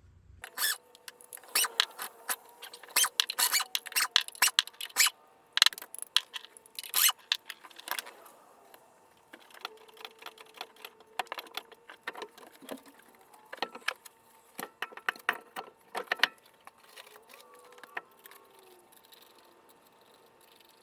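Metal clinking and rattling of hand tools and lug nuts being handled during a wheel change: many sharp clinks close together for the first several seconds, then fewer and more spaced out.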